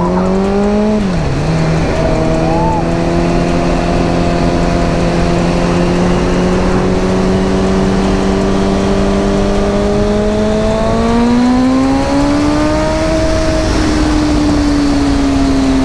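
Motorcycle engine pulling away and riding: the revs climb, drop sharply with an upshift about a second in, then hold fairly steady, climb again around eleven seconds and ease off near the end. A steady rush of wind and road noise runs underneath.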